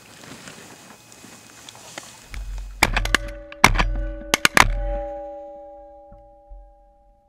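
A quick volley of shotgun blasts at ducks overhead, several shots in close succession from about three seconds in, from more than one gun. A ringing tone hangs on after the shots and fades over about two seconds, over a low rumble as the gun is swung.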